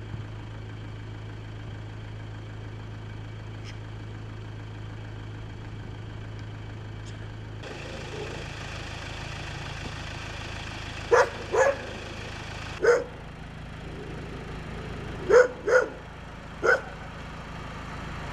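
Dog barking: six short barks in the second half, mostly in quick pairs, over a steady low background hum.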